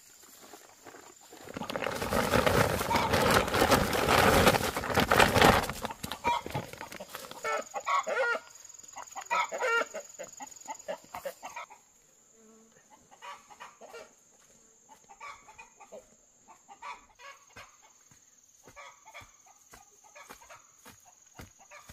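Chickens clucking and squawking: a loud flurry for a few seconds near the start, then shorter calls, fading to scattered quieter clucks in the second half.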